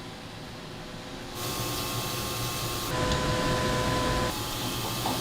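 CNC grinding machine running. A steady hiss comes up about a second and a half in. A steady whine sounds over it for about a second and a half in the middle.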